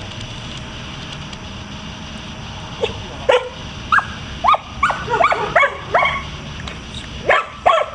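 A Malinois-type dog barking repeatedly in short barks, starting about three seconds in, roughly ten barks at about two a second, with a brief pause before a last few near the end. It is barking at the helper in bite-work training.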